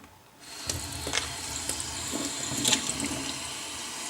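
Water running from a tap, starting about half a second in, pouring into the plastic water tank of a robot vacuum's wet-mop attachment to fill it.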